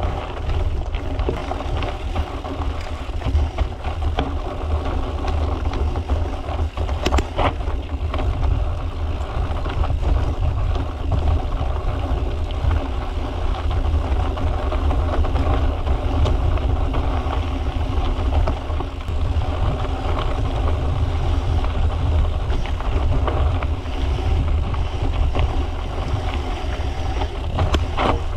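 Steady wind rumble buffeting the microphone of a moving mountain bike, with the rolling noise of its tyres on a dirt trail.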